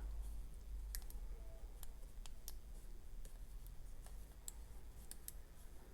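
Faint, scattered metallic clicks of a lock pick probing the spool pins inside a small aluminium Sonico padlock, working back from the first pin.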